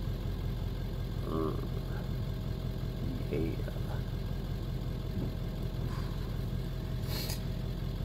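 Vehicle engine idling with a steady low hum, heard from inside the cab, with a sharp click about seven seconds in.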